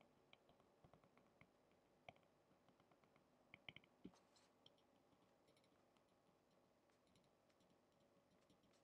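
Very faint clicks and light taps of a stylus writing on a tablet screen, with a short cluster of louder taps about three and a half to four seconds in.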